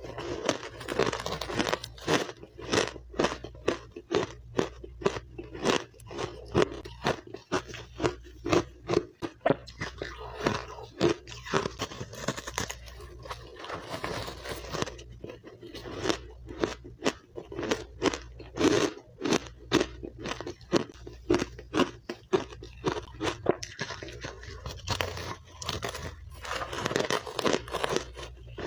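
Powdery refrozen matcha ice being chewed and crunched in the mouth, close to the microphone: a dense run of sharp crunches, several a second.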